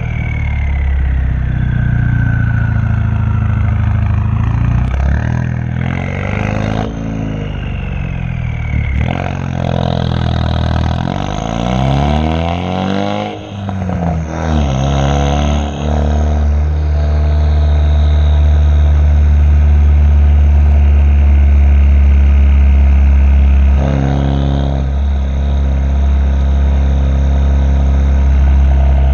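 Loud exhaust of a 2016 Ford Focus RS's turbocharged 2.3-litre four-cylinder running through a catless downpipe with the muffler deleted, heard from behind the car while driving. Engine pitch rises and falls through several gear changes in the first half, then holds steady at cruise, with one brief dip near the end. A high whistle falls in pitch near the start.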